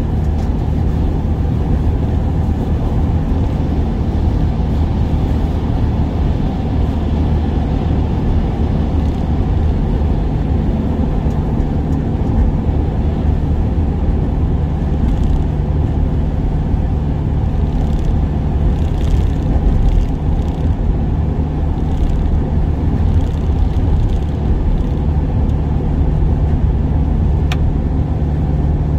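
A van's engine running, heard from inside the cab as a steady low drone.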